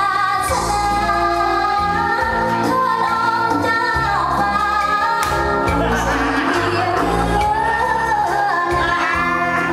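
Pop song with a woman singing over a bass line, played loud and without a break.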